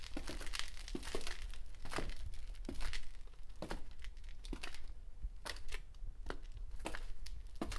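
Footsteps crunching on crackly ground at a walking pace, roughly one step a second, each step a short crinkling crunch.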